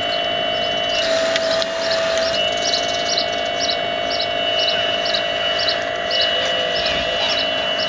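Radio-controlled Hitachi 870 excavator model running with a steady whine that shifts in pitch briefly about a second in. Over it, a bird chirps in a regular series of short high calls, about two a second.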